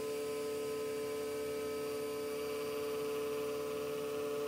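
Diode laser engraver, a CNC router fitted with a laser module, running a cutting job: a steady hum with several constant whining tones from its motors and electronics.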